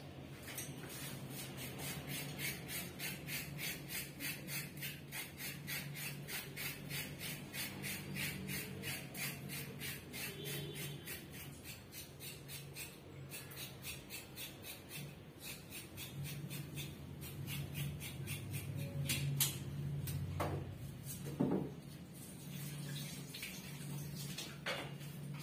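Rhythmic scraping strokes, about four a second, from hand work at a kitchen sink, stopping about two-thirds of the way through. A few sharp knocks and clatter follow near the end, over a low steady hum.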